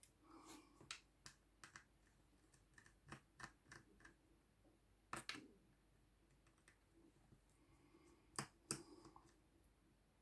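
Faint, irregular clicks and light taps of small repair tools working on an opened iPhone, with two sharper clicks near the end.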